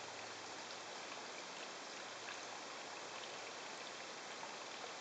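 A steady, even hiss with a faint high whine.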